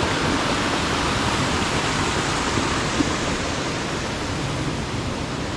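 Steady rush of water cascading down a tiered waterfall.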